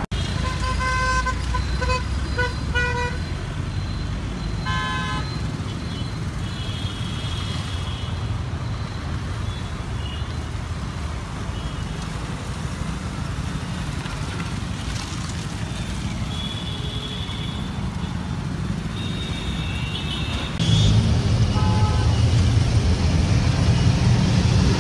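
Road traffic with car horns honking: a run of short honks in the first three seconds, another at about five seconds and a few more near the end. About three-quarters of the way through, a louder low engine rumble comes in.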